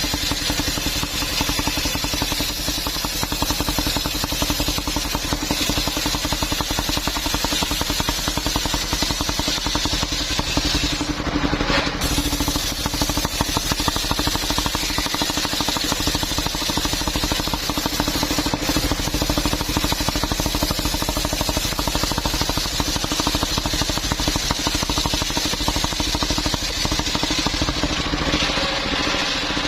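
Engine-driven mobile circular sawmill running steadily, with a constant hum.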